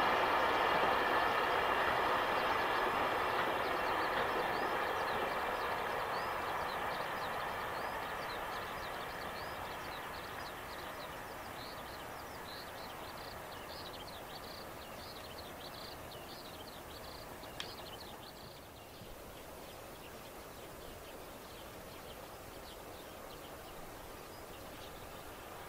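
JR Freight container train rolling past on the line, its wheels-on-rail noise fading steadily as the last container wagons move away. A run of short high chirps sounds through the middle.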